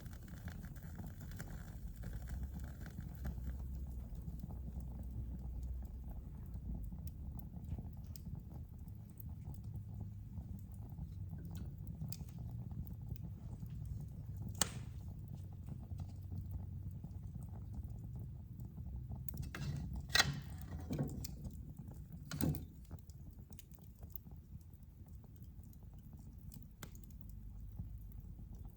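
Fire in a fireplace crackling over a low steady rumble. There are scattered small crackles, a sharp pop about halfway through, and a few louder pops and snaps a little later.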